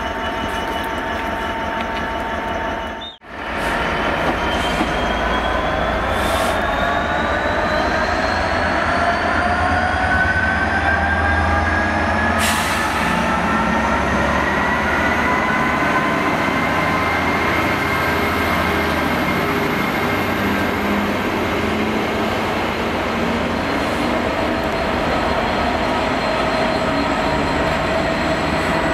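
DB Class 66 diesel-electric locomotive, with its two-stroke V12 diesel, pulling a freight train of empty flat wagons past: a steady low engine rumble with a whine that rises slowly in pitch as it gathers speed, then holds. There is a brief break about three seconds in.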